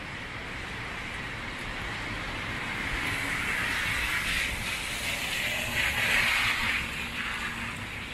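Steady hiss of a rain-soaked city street, swelling to a louder rush between about three and seven seconds in, loudest near the six-second mark, then settling back.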